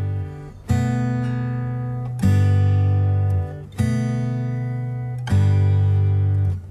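Background music: slow guitar chords, each strummed and left to ring for about a second and a half before the next.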